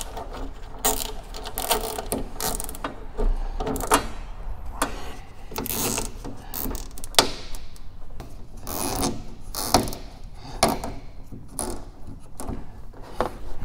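Nylon cable ties being pulled tight around solar panel cables, a ratcheting zip, with irregular clicks and rasps from handling the ties and cables.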